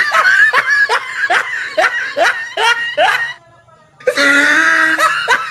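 Shrill, high-pitched human laughter: a held cry, then a run of about eight quick 'ha' bursts, a short break, and another shrill cry with more laughing near the end.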